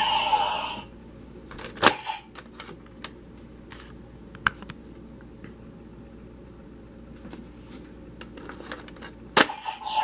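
Hard plastic clicks and snaps from a Kamen Rider Ryuki-style Advent visor toy being handled while an Advent card is loaded. The toy's electronic sound effect ends within the first second, a sharp snap comes about two seconds in, light clicks are scattered through the middle, and another loud snap comes near the end.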